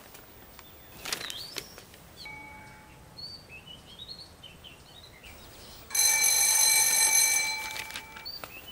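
Electric school bell ringing: a loud, steady ring starting about six seconds in and lasting about two seconds, the signal for the end of the period. Before it, faint bird chirps.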